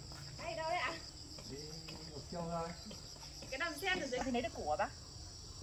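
A steady chorus of insects, heard as a high pulsing buzz. Short, bending, voice-like calls come over it a few times and stand out louder.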